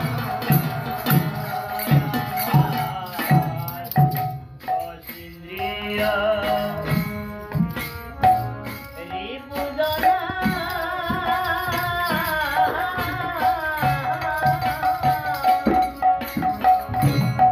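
Bengali devotional folk song played live: khol barrel drum strokes and a steady harmonium drone, with a man's sung melody coming in about six seconds in and growing fullest in the middle, over a constant jingle of small hand cymbals.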